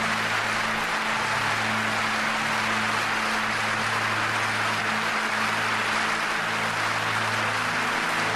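Steady roar of a large stadium crowd, with music underneath holding sustained low notes that shift a few times.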